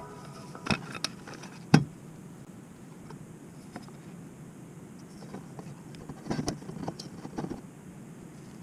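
Scattered clicks and knocks of small objects being handled over a low steady background, the loudest a sharp knock a little under two seconds in and a short cluster of softer ones about six to seven and a half seconds in.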